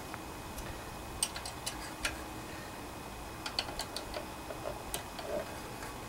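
Light, irregular metallic clicks of an open-end wrench and pliers working the valve-adjuster lock nut on a Honda GC160 rocker arm, as the lash adjustment is locked down. The clicks come in small clusters about a second in and again around three and a half to four seconds.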